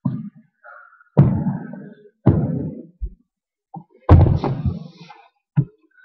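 A series of heavy thuds at irregular intervals, the three loudest each trailing off over most of a second.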